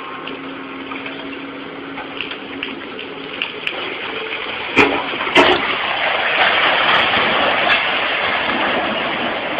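Machinery running with a steady rushing noise and a low hum over the first few seconds; two sharp knocks come about halfway, after which the rushing grows louder.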